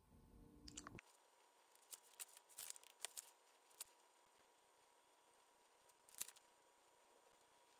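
Near silence with a few faint, crisp rustles and clicks, mostly about two to three seconds in and again around six seconds: a paperback book being handled while it is read.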